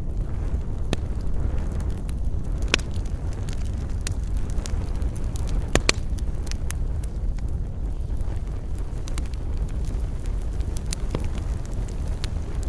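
Wood campfire crackling: irregular sharp pops and snaps over a steady low rumble, with the loudest pops about three seconds and six seconds in.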